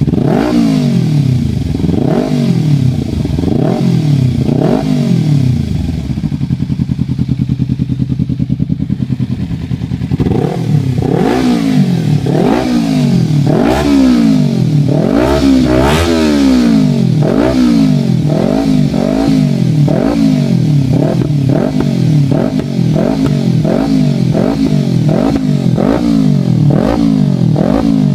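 Kawasaki Ninja 300's parallel-twin engine free-revved through a Leo Vince EVO2 exhaust: repeated throttle blips, each rising and falling in pitch. About six seconds in it settles to a steady idle for a few seconds, then the blips resume, quicker and closer together.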